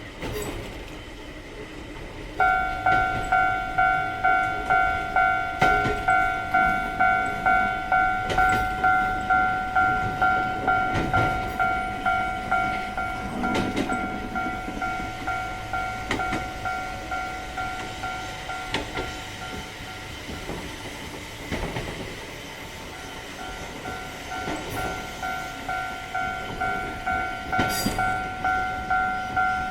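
Railway level-crossing warning bell clanging steadily, about one and a half strikes a second, over the running noise of a train. The bell starts a couple of seconds in, fades for a moment around two-thirds of the way through, then grows louder again.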